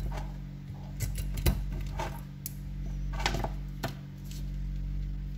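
Several sharp plastic clicks and knocks as a handheld two-way radio and its earpiece headset and cable are handled, the loudest about one and a half seconds in, over a steady low hum.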